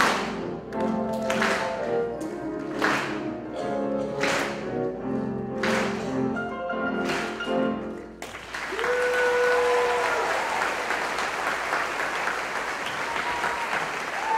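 A piano ensemble of several grand pianos plays the final loud chords of a piece, struck about every second and a half, and stops suddenly about eight seconds in. The audience breaks into applause with a few cheers.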